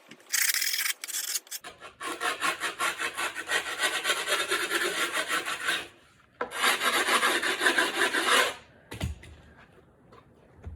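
Metal skate tool scraped hard along the edge of a skateboard deck over fresh grip tape, a fast rasping scrape in three long runs; it scores the grip so the edge line shows white, ready for trimming. A dull thump near the end.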